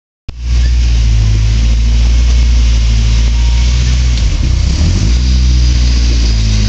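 Rock-crawler buggy's engine running steadily under load as it climbs over boulders, with a brief stretch of throttle changes, the pitch dipping and rising, about four seconds in.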